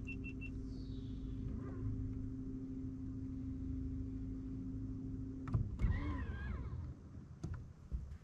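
A small electric motor running with a steady hum, stopping suddenly about five and a half seconds in, followed by a few sharp knocks.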